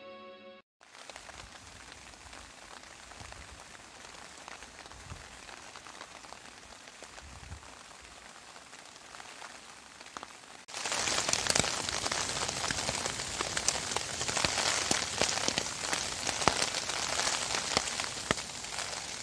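Wind-driven rain pattering on a tarp shelter, with a low rumble of wind in the gusts. About halfway through it abruptly becomes much louder and denser, a heavy lashing downpour.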